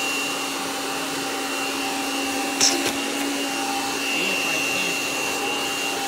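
Kirby G5 upright vacuum's motor running steadily in hose mode at its highest speed, a constant whine over the rush of air, with a hose that the owner thinks may be clogged. A brief sharp knock about two and a half seconds in.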